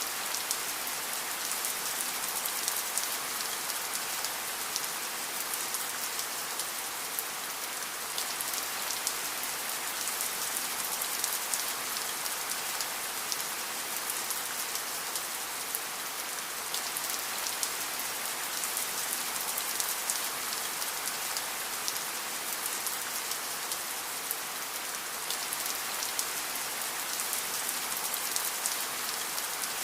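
Steady rain falling on a surface: a constant hiss with many small drop ticks.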